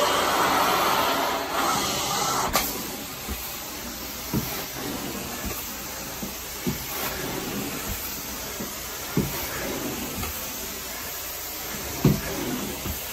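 Carpet-cleaning extraction wand working a carpet: a steady hiss of suction and spray. It is louder for the first couple of seconds and ends with a sharp click, then carries on quieter with soft knocks as the wand head is pushed and pulled.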